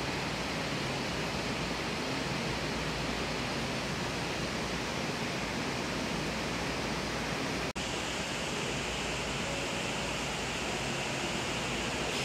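Steady, even rushing noise of a large hotel atrium with an indoor rock stream and water feature running. About eight seconds in the sound drops out for an instant and picks up again, a splice in the recording.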